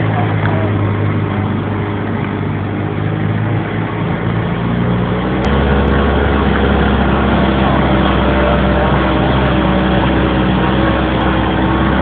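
Jeep engine running as it drives slowly along a bumpy dirt farm track, heard from inside the vehicle. About five and a half seconds in, its note changes and the engine gets louder.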